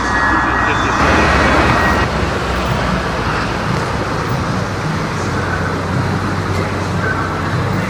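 Car engine running with a steady low drone, loudest in the first two seconds and then easing off slightly.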